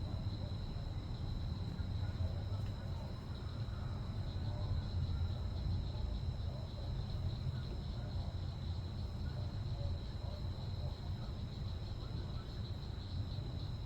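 Night insects chirping in a steady high-pitched trill, over a low, uneven rumble.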